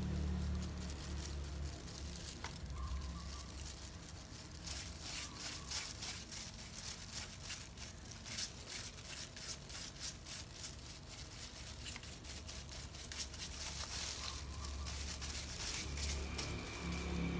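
A small brush scraping black dye through a doll wig's goat hair: a run of quick, scratchy strokes, with plastic gloves rustling, over a low steady hum.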